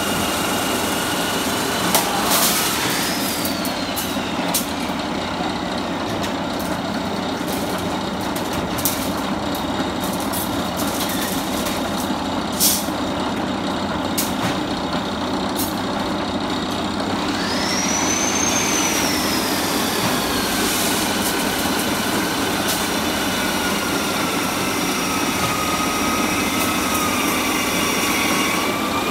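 Electric rebar cutting machine running steadily as bundles of steel reinforcing bars are fed through it, with several sharp metallic clanks in the first half as the bars are sheared. A high whine rises and then slowly sinks in pitch twice, the second time from just past halfway.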